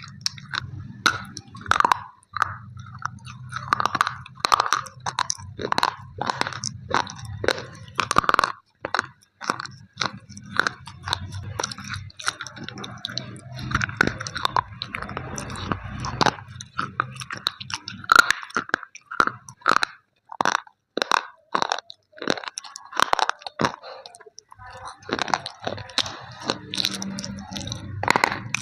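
Close-miked biting and crunching of slate pencils, many sharp irregular crunches several times a second as the brittle sticks are bitten and chewed.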